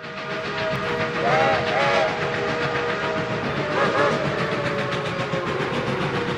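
Steam locomotive chime whistle blowing one long chord that bends in pitch a few times, about a second in, at two seconds and again at four seconds, over the steady running noise of the train.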